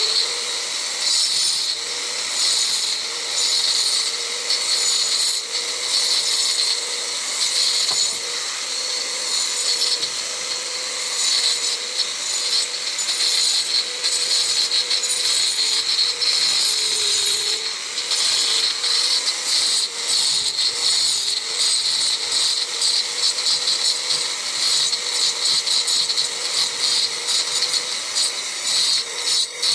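Angle grinder cutting a groove into a concrete hollow-block wall to chase a channel for electrical wiring. The motor runs steadily with a constant tone under a loud cutting noise that rises and falls as it works.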